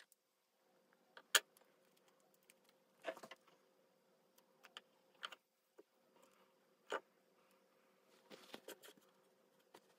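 Hands handling a tape-backed aluminum blank: scattered light clicks, taps and brief rustles, the sharpest click about a second and a half in.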